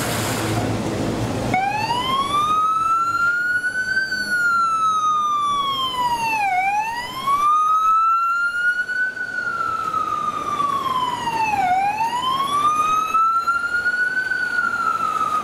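Siren of an Audi SUV fire command car, sounding a slow wail that comes in about a second and a half in. Each cycle rises over about two seconds, eases down, then dips sharply and climbs again, roughly every five seconds. Traffic noise comes before the siren starts.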